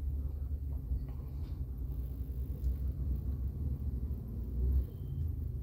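Low, steady rumble of a car's engine and tyres on the road, heard from inside the moving car's cabin.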